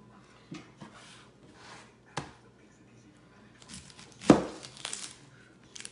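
Kitchen knife cutting into a whole onion on a plastic cutting board: a sharp click about two seconds in, then a hard knock of the blade on the board a little past four seconds in, followed by about a second of scraping and cutting sounds.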